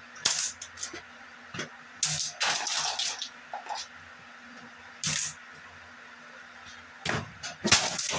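A baseball bat striking a plastic Aerospeed box fan, sharp hits at uneven intervals: a cluster about two to three seconds in, one about five seconds in, and several close together near the end.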